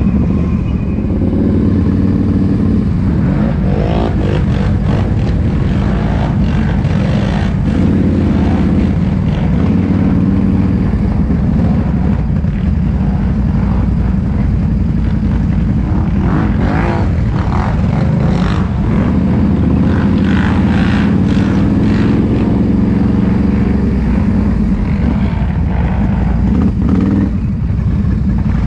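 ATV engine running under load throughout, revving up and easing off several times so its pitch rises and falls.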